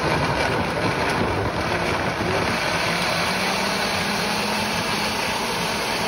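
Vida Sana high-power heated blender running steadily on its soup program, its six-blade assembly chopping whole tomatillos, onion and chiles in water into a smooth sauce.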